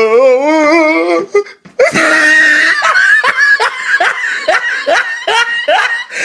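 Hearty human laughter: a drawn-out, wavering laugh, a brief pause about a second and a half in, then a quick run of repeated laughs, about three a second.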